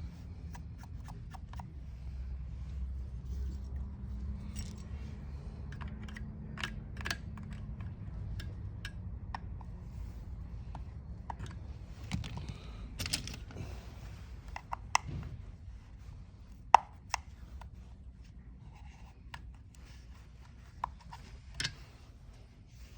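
Hand tools and small metal parts clicking, knocking and scraping against a chainsaw as it is taken apart, in scattered irregular strikes over a steady low hum, with one sharp click about three quarters of the way through.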